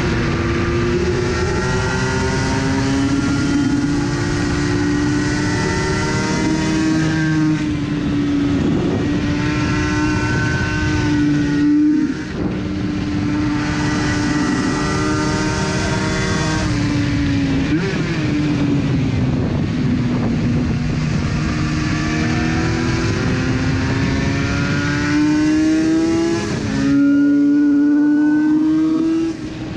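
Yamaha 500cc two-stroke Grand Prix racing motorcycle engine at high revs, ridden on track. Its pitch climbs under acceleration and drops back again and again, with short breaks at the shifts or throttle cuts about twelve and twenty-seven seconds in. Wind rush at speed runs over the engine.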